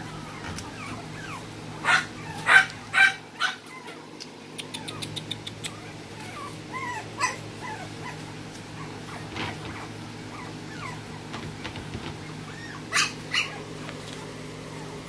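Smooth coat Brussels Griffon puppy yipping in play: four quick yips about two seconds in and two more near the end, with soft whimpers in between.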